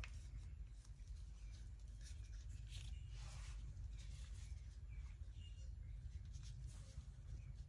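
Quiet room tone: a steady low hum with faint, scattered scratchy rustles.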